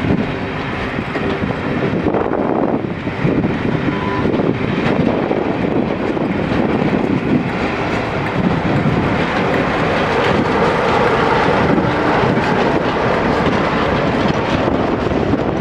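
Steam-hauled passenger train passing, its coaches rolling along the rails in a loud, steady rumble.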